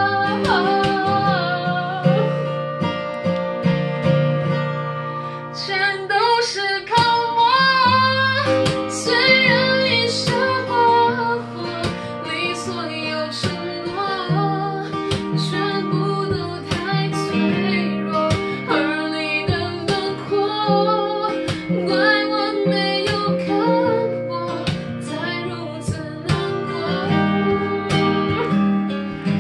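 A woman singing a Mandarin pop ballad, her held notes wavering in pitch, accompanied by a strummed and picked acoustic guitar.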